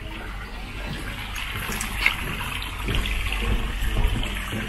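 Harbour water sloshing and lapping, a steady rushing noise over a low rumble, with a brief sharper sound about two seconds in.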